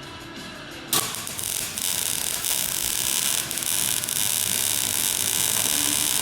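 Welding arc crackling steadily, struck suddenly about a second in.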